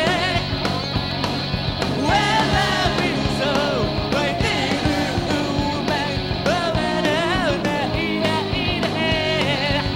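A pop-punk rock band playing live, with a singer's voice gliding over drums and guitars.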